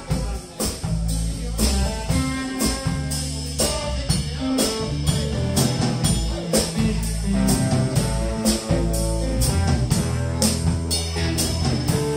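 Live blues band playing an instrumental passage: two electric guitars, electric bass guitar and drum kit, with a steady, even beat from the drums.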